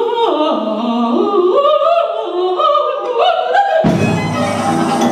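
A woman singing an operatic line in leaping, stepped pitches from a contemporary opera. About four seconds in it cuts abruptly to orchestral music with low sustained notes.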